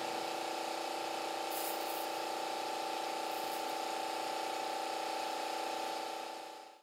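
Small electric pump humming steadily while a hand-held spray wand hisses out a fan of brine; the sound fades out near the end.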